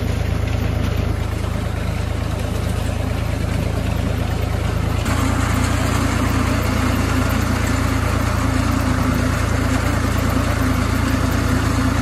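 Tractor engine running steadily under load, driving a front-mounted reaper binder that is cutting standing wheat. From about five seconds in, the drone gets a little louder.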